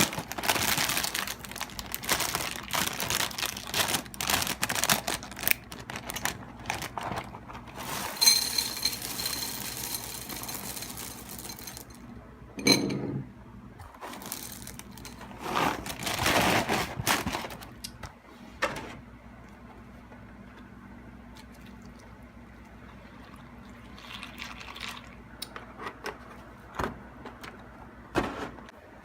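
Cereal being readied: packaging crinkling and dry Froot Loops rattling as they are poured into a bowl, with a single knock about 13 seconds in. A second, smoother pour follows around 15 to 18 seconds, then only faint ticks.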